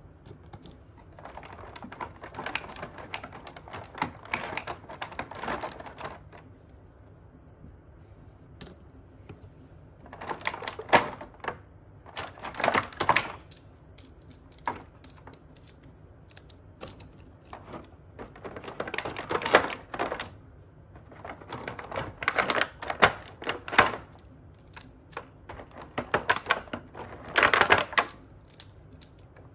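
Plastic toy train track pieces clicking and clattering against each other and the plastic packaging tray as they are handled. The clicks come in five spells of rapid clatter with quieter pauses between.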